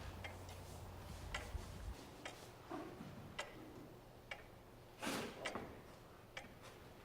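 Faint, sharp ticks and taps, irregularly spaced at about one a second, with a heavier knock about five seconds in. A low hum underneath stops about two seconds in.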